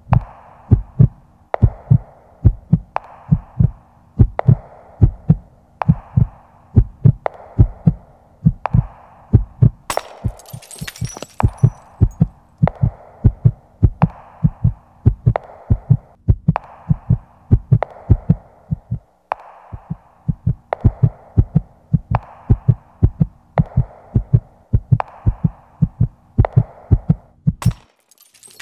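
Slow heartbeat sound effect: paired thumps about every second and a half, over a faint steady low hum, with a short hiss near the middle; it stops suddenly near the end.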